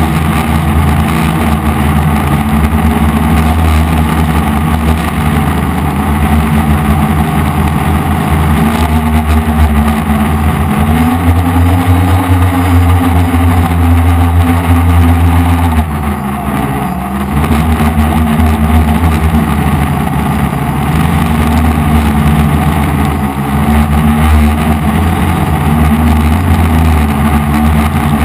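F450 quadcopter's brushless motors and propellers buzzing steadily. The pitch climbs and holds for several seconds, dips sharply for about a second a little past halfway, then comes back as the motors speed up again.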